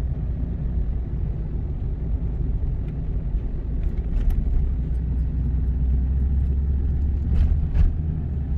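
Steady low rumble of a Ford F-250 pickup driving along, heard inside the cab: engine and road noise. There are a couple of faint clicks near the end.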